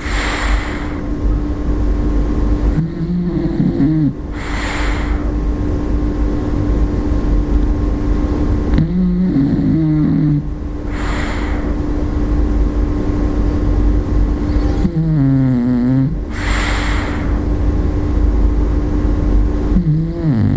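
A sleeping bulldog snoring in a slow, regular rhythm, about four breaths here, roughly every six seconds. Each breath is a rattling, pitched snore followed by a hissing breath. A steady low hum runs underneath.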